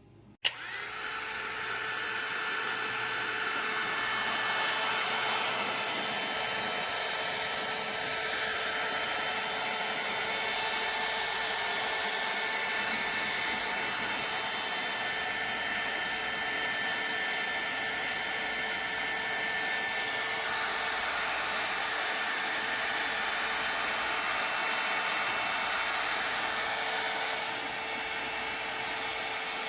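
SEEKONE 600 W mini heat gun switched on with a sharp click, then running: a steady blowing hiss from its fan with a steady tone under it, a little quieter near the end.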